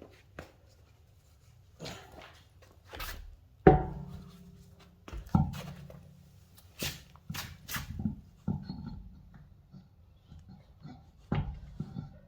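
Irregular knocks and clunks of tools and car parts being handled during brake work, with one heavy thunk about four seconds in and a quick run of sharp clicks a few seconds later.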